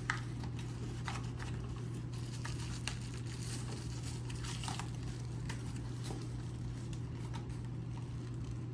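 Packaging and lock parts being handled during an unboxing: scattered light rustles and small clicks, over a steady low hum.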